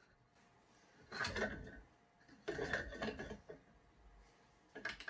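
Plastic filament spool turning on a bare spool-mount rod with no spool holder fitted, its hub scraping and rattling against the rod in two stretches of about a second each, then a short click near the end.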